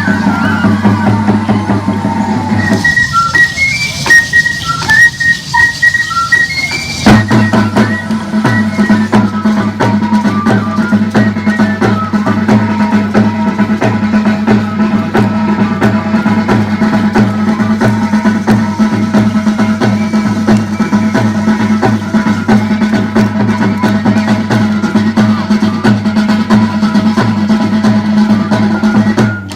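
Traditional Loreto carnival dance music with a steady drum beat and a high melody. About three seconds in the drums and low part drop out for a few seconds, leaving only short high melody notes, then the full beat comes back.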